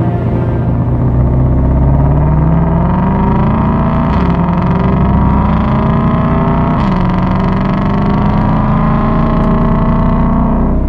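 2020 Shelby GT500's supercharged 5.2-litre V8 accelerating hard under full throttle. Its pitch climbs steadily, drops at two quick upshifts (a little after four seconds and near seven seconds), and climbs again after each one.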